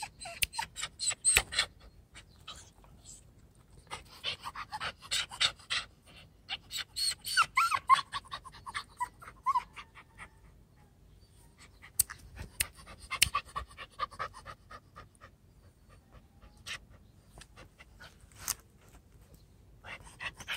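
Puppy panting rapidly in bouts of a few seconds, with short pauses between them.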